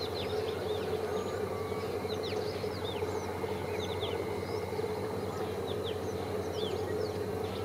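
Distant EMD WDP4D diesel locomotive running, a steady low drone. Small birds chirp over it again and again in short falling notes.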